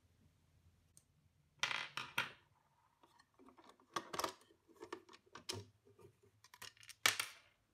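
Plastic rear cover of a Bernina 1230 sewing machine's free arm being unclipped and pulled off by hand: a run of clicks, snaps and knocks, loudest about a second and a half in and again near the end.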